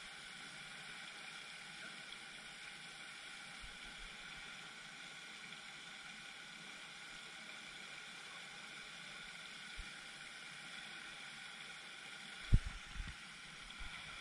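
Steady splashing hiss of a pond aerator fountain's spray falling onto the water. A brief low thump comes near the end.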